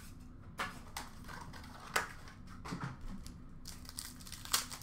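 Hockey trading card packs and cards being handled by hand: scattered light clicks and rustles, the sharpest about two seconds in and again near the end.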